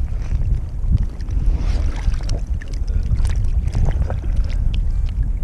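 Water sloshing and splashing right at the microphone as a swimmer in a drysuit moves at the surface, over a steady low rumbling buffet, with scattered short splashes throughout.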